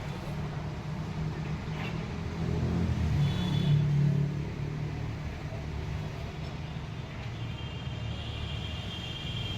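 A large engine running with a low rumble that swells about three to four seconds in. A high thin tone sounds briefly about three and a half seconds in, and again from about seven and a half seconds on.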